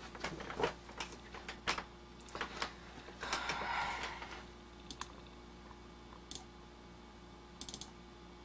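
Irregular clicks and taps of a computer keyboard and mouse, thickest in the first few seconds and ending with a quick little run of clicks near the end, with a short soft rustle about three seconds in, over a faint steady hum.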